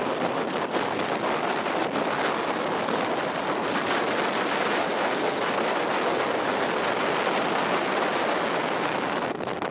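Steady rushing of heavy storm surf and wind, with no distinct single events.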